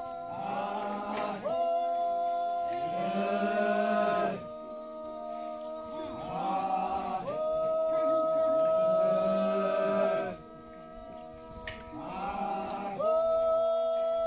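Voices singing or chanting in long held phrases of a few seconds each, sliding up into each note, with quieter breaks between phrases.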